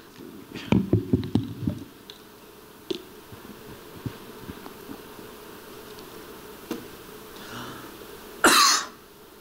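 A man coughs once near the end, a short loud burst. Before it there is only quiet room tone with a few faint clicks.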